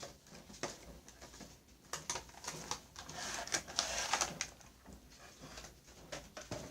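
Cardboard action-figure box being opened by hand: scattered clicks and taps from the flaps and packaging, with a stretch of scraping and rustling about three to four and a half seconds in.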